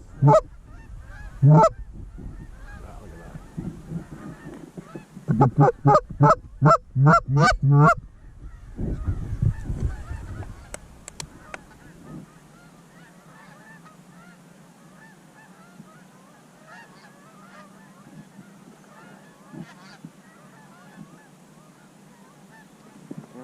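Goose honks: a few loud, close honks near the start, a quick run of about eight honks between five and eight seconds in, then faint honking and chatter of a flock in the distance.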